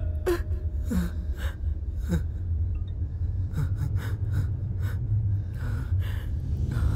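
A man gasping and breathing hard in short, uneven breaths, the first few with a brief falling whimper, over a low steady drone.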